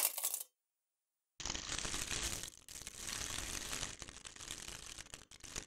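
Computer-synthesized crumpling of a thin sheet: a dense crackle of many small buckling clicks. It starts about a second and a half in and lasts about four seconds. A brief loud crunch from a thin-walled can being crushed cuts off at the very start.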